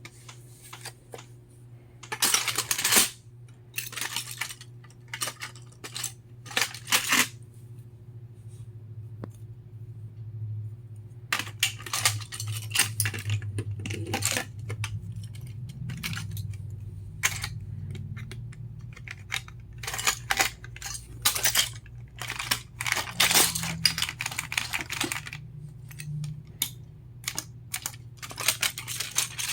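Plastic Lego bricks clicking and rattling in irregular bursts as a brick-built toy gun is handled, over a low steady hum.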